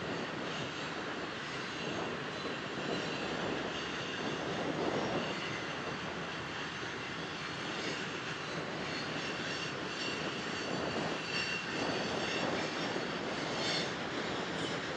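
Freight train's covered grain hopper cars rolling past: a steady noise of steel wheels running on the rails.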